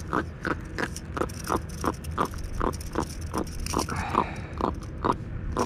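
A small jack crevalle grunting, a steady series of short croaks about three a second.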